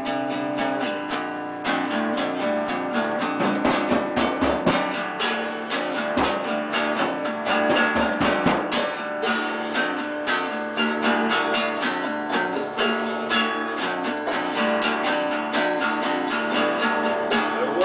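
Live band jamming: a strummed acoustic guitar playing a steady rhythm with drums.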